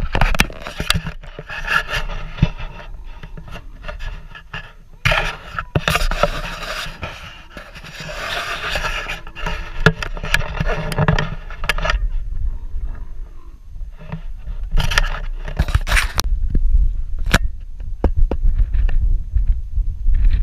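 Scraping and rubbing noise on the camera with scattered knocks and a low rumble, as the camera is handled and brushes against cloth.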